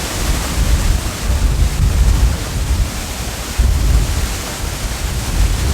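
Steady rushing roar of a waterfall close by, with gusts of wind buffeting the microphone in uneven low rumbles.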